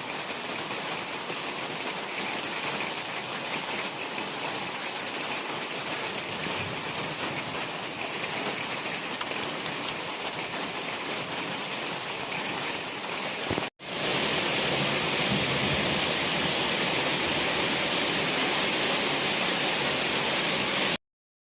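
Steady rain falling, a dense even hiss. About two-thirds of the way through it drops out for an instant and comes back louder, then cuts off abruptly near the end.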